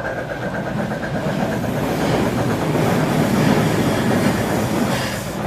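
HO scale model passenger train rolling past on the layout track behind a steam locomotive, its metal wheels clicking over the rail joints. The rolling noise grows louder and is loudest about three to four seconds in as the cars pass close.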